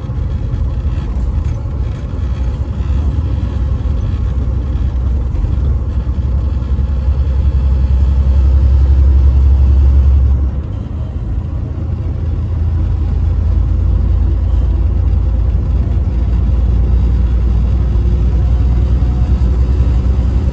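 Semi-truck driving on the highway: a steady low rumble of engine and road noise. It builds through the first half, drops suddenly about halfway through, then holds steady.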